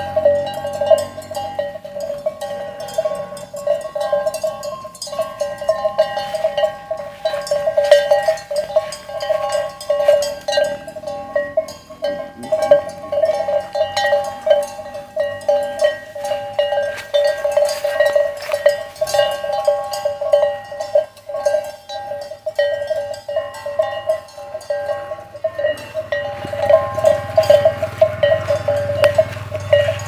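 Cow's neck bell clanking again and again with an uneven rhythm as the animal moves, its ringing tone steady throughout. In the last few seconds a low engine rumble from a passing road vehicle builds underneath.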